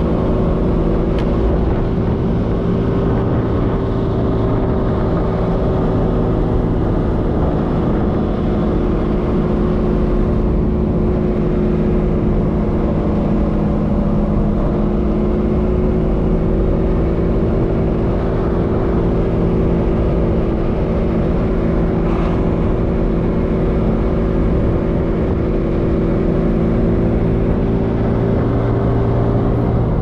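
Alfa Romeo Spider's twin-cam four-cylinder engine running at a steady cruise, with a nearly constant engine note over road and wind noise, heard from inside the car.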